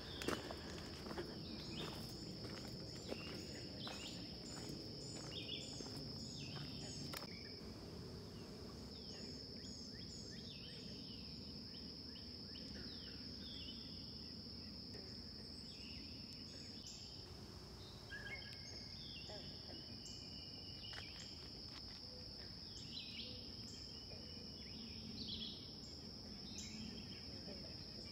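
Pond-side ambience: insects keep up a steady high-pitched trill that drops out briefly twice, while birds give many short chirps and calls over it.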